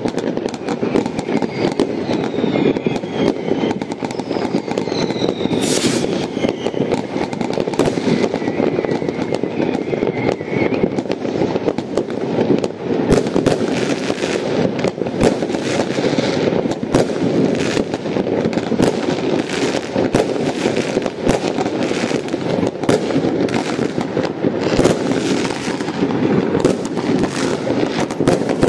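Many fireworks going off at once in a constant barrage of bangs and crackling from rockets and firecrackers. A few whistles glide in pitch through the din in the first ten seconds or so.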